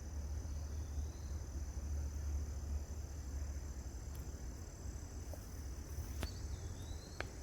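Insects trilling in one steady high tone, over a constant low rumble, with a few short rising chirps about a second in and near the end.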